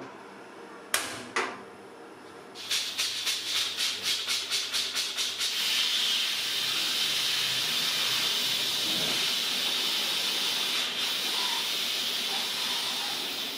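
Two metal clacks, then a pressure cooker's weighted regulator valve puffing steam in rapid even pulses. After a few seconds this becomes a steady hiss of steam escaping from the vent while the weight is held by hand, a sign the cooker has built up pressure.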